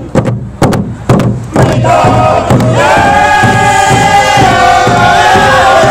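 Round dance song: hand drums struck in a steady beat of about two strokes a second. From about two seconds in, a group of voices joins with a high, held chant over the drumming.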